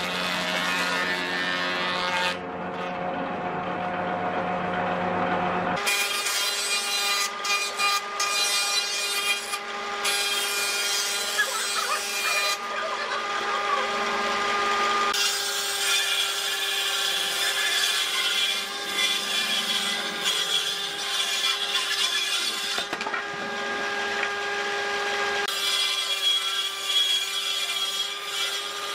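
Combination jointer-planer running, its cutterhead planing a rough wooden board: a steady machine whine with the rasp of the knives cutting wood. The sound shifts abruptly several times.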